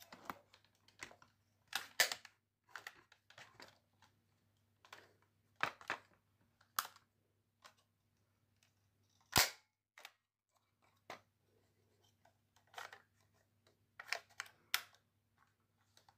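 Sharp, irregular clicks and clacks of the parts of a Cyma M4 airsoft rifle being worked by hand, with the loudest snap about nine seconds in.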